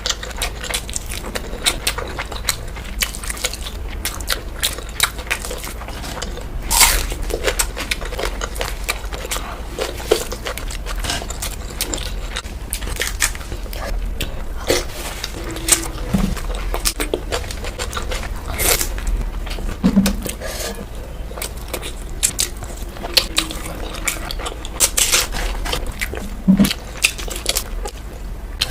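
Close-miked eating sounds: chewing and biting into curry with rice and seafood, with frequent sharp clicks and crunches over a steady low hum.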